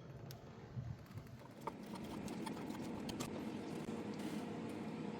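Scattered sharp clicks and light knocks over a rushing background that grows louder about two seconds in.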